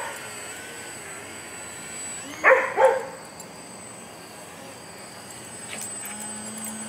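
A dog barks twice in quick succession about two and a half seconds in, over the thin, steady whine of a small electric RC plane's brushless motor and propeller, its pitch wavering as the plane manoeuvres.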